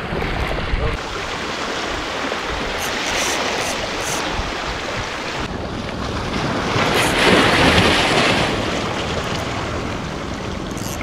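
Sea waves washing against shoreline rocks, with wind on the microphone; a wave surges louder about seven seconds in.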